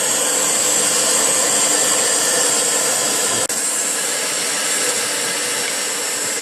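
Small electric air-mattress pump, powered by a cordless screwdriver battery, blowing air into a forge fire: a steady blowing noise, with a single click about three and a half seconds in.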